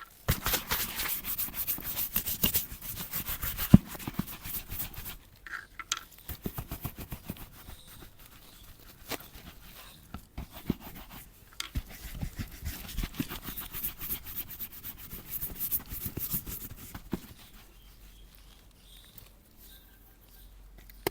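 A brush scrubbing a leather boot in quick back-and-forth strokes, in spells with short pauses, with one sharp knock about four seconds in; the strokes thin out and turn quieter near the end.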